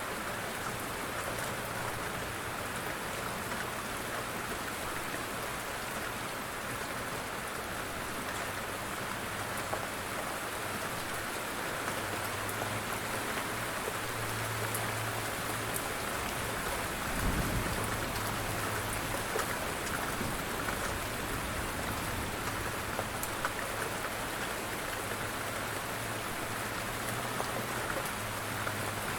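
Steady rain falling, an even hiss with scattered drop ticks, and a brief low thump about seventeen seconds in.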